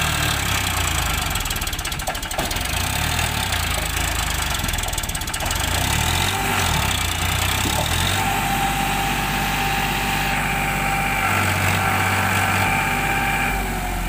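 Farmtrac tractor's diesel engine running under load as it pulls a loaded sand trolley through river water; its pitch rises and falls for the first eight seconds or so, then holds steady.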